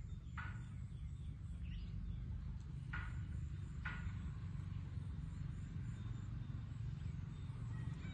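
Steady low outdoor rumble with three short, sharp animal calls: one just after the start and two more around three and four seconds in.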